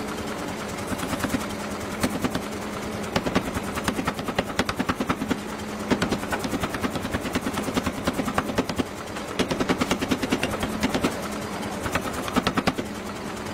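Power hammer striking a glowing Damascus steel billet in rapid runs of blows, several bursts of a few seconds each, over the machine's steady hum.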